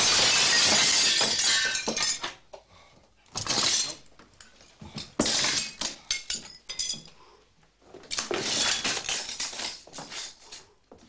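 A frosted glass door panel kicked in and shattering, with shards tinkling down for about two seconds. A string of shorter crashes and clatters follows.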